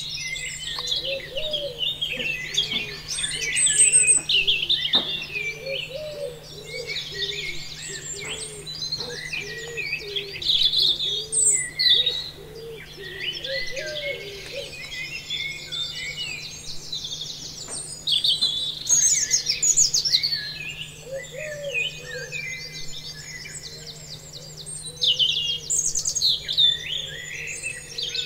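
A chorus of many birds chirping and trilling over one another, with a lower call repeating again and again beneath them and a steady low hum.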